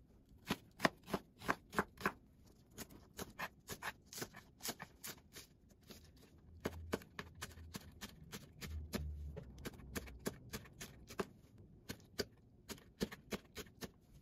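Kitchen knife chopping onion, green onion and Cheongyang chili peppers on a plastic cutting board: a quick series of sharp knife strikes, two or three a second, with short pauses between runs.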